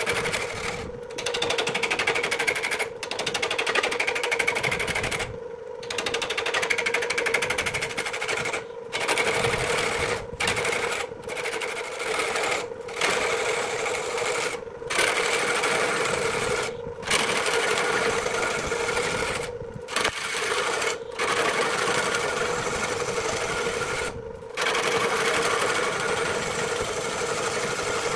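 Wood lathe running with a steady hum while a hand-held turning gouge cuts a spinning block of wood, a dense rattling scrape. The cutting noise breaks off briefly about a dozen times as the tool comes off the wood.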